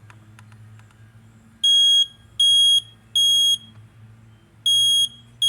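Smoke alarm sounding its three-beep pattern: three short, high-pitched beeps, a pause, then the next set of beeps begins near the end. The three-beep pattern is the sign of a smoke alarm, as distinct from the four-beep pattern of a carbon monoxide alarm.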